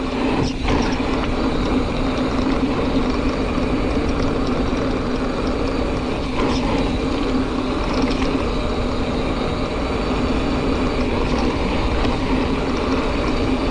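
Rear freehub of a Giant Fathom 2 mountain bike buzzing steadily while coasting, over a low rumble from the ride on dirt trail, with a few brief knocks.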